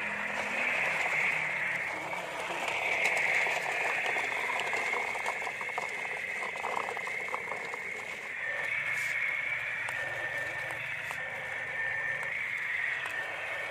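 Small electric gear motor of a toy RC dump truck whining steadily as it drives, the pitch wavering slightly with the load. Gravel crackles under the tyres, most clearly in the middle.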